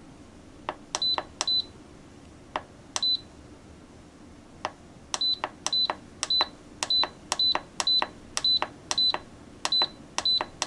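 Instant Pot Duo control panel beeping as its minus button is pressed again and again to shorten the pressure-cook time. Each press gives a click and then a short, high beep. There are a few spaced presses at first, then a steady run of about three a second from about halfway.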